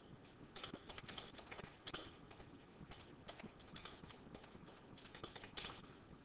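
Faint, irregular clicks and taps, a few a second, over a low background hiss.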